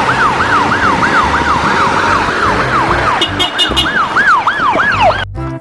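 Ambulance siren in a fast yelp, rising and falling about three times a second. A brief run of short, higher beeps comes a little after three seconds in. The siren cuts off suddenly near the end.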